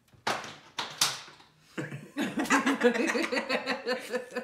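A person laughing hard: a few breathy gasps, then from about two seconds in a long run of rapid, pulsing laughter.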